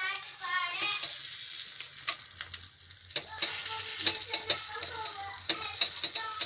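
Egg paniyaram batter sizzling in hot oil in the cups of a paniyaram pan, with sharp clicks of a stick tapping the pan as the egg balls are turned.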